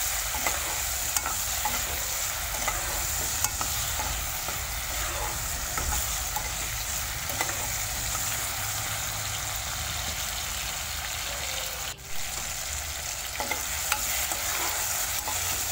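Sliced onion and chopped tomato sizzling in mustard oil in a wok while being stirred with a steel spoon, with light clicks of the spoon against the pan. The sizzle briefly drops out about twelve seconds in.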